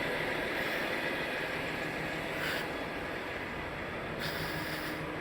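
Steady hum and hiss of an idling lorry engine.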